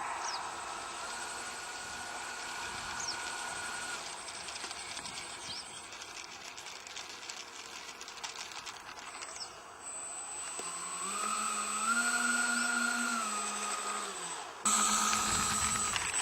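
RC Su-27 model jet in flight, its motors giving a steady whine that rises in pitch and back down about two-thirds of the way through, growing louder, with a sudden jump in loudness near the end.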